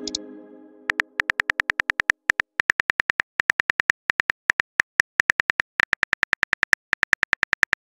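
Smartphone keyboard key clicks as a text message is typed: a rapid, even run of about six clicks a second with a few brief pauses. In the first second the tail of a message-alert chime dies away.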